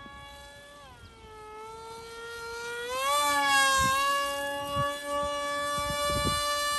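Electric motor and propeller of a small foam-board RC flying wing whining in flight. The pitch drops about a second in, then rises again around three seconds as the whine gets louder and holds steady. A few low thumps come near the end.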